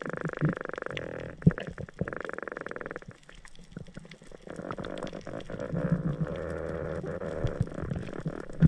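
Underwater sound picked up through a camera housing. A fast-pulsing buzz stops about three seconds in, water noise follows, and a few sharp clicks stand out, the loudest about one and a half seconds in and at the end.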